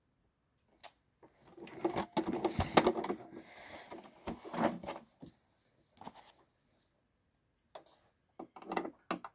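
Irregular handling noises at a sewing workspace: a close run of knocks and rustling about two to three seconds in, a few more knocks, then scattered clicks and taps near the end.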